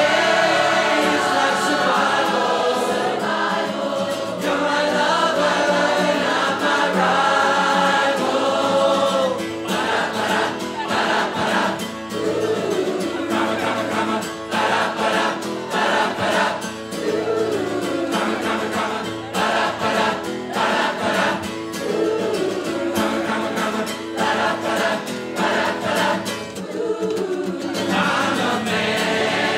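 A large crowd of amateur voices singing together as a choir, accompanied by a strummed acoustic guitar. The singing is held and sustained at first, then breaks into shorter, choppier phrases about nine seconds in.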